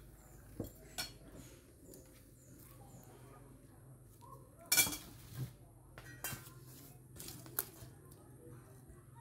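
Metal spoon clinking against a ceramic bowl: a handful of separate clinks, the loudest about halfway through.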